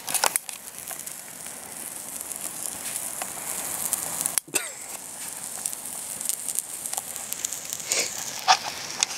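Accelerant-soaked plastic toy train track burning, a steady hiss of flame with scattered crackles. The sound breaks off briefly about four and a half seconds in.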